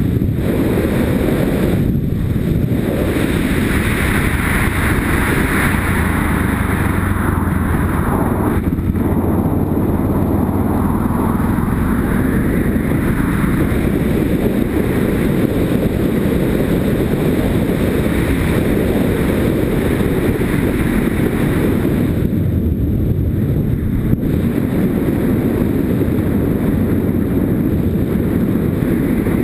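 Yamaha Ténéré motorcycle being ridden along a gravel track: the engine runs steadily under the rumble of wind buffeting a helmet-mounted microphone.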